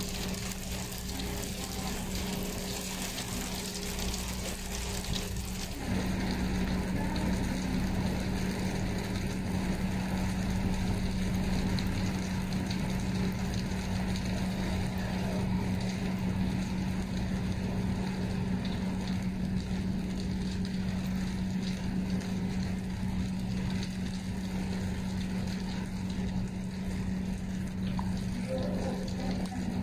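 Steady rain falling on wet paving, with a constant low hum underneath. The rain's hiss thins out about six seconds in.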